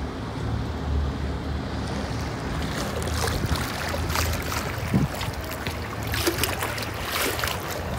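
A small boat's engine drones low and steady while water splashes along the hull and wind buffets the microphone; the splashing grows from about three seconds in.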